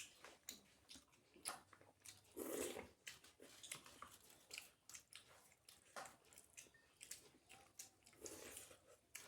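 Close-up chewing of a flatbread and curry meal: irregular soft wet mouth clicks and smacks, with two short louder chewing spells.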